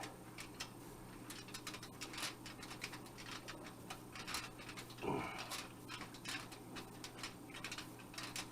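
Faint, irregular small clicks and scratches of a wire nut being hand-twisted onto bundled stove wiring. A brief falling vocal sound about five seconds in.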